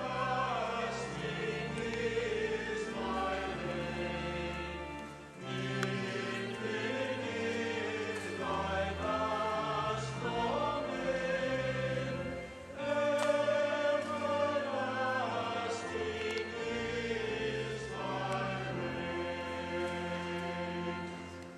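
Background music: slow choral singing over held low chords, in long phrases, fading out near the end.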